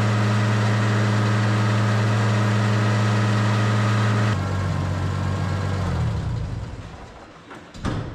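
Oliver 1650 tractor engine running smoothly at a steady speed. About four seconds in it is throttled back and shut off, and its note falls as it winds down to a stop. A single knock follows near the end.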